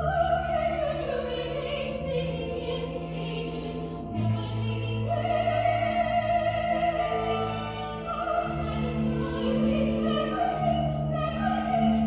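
A high female voice singing a slow musical-theatre ballad over orchestral accompaniment, with held low notes underneath.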